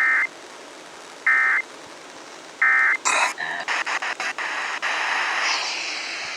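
Emergency Alert System end-of-message data bursts received over FM radio: three short, harsh digital screeches about 1.3 seconds apart, signalling the end of the alert. These are followed by a string of crackles that gives way to a steady hiss.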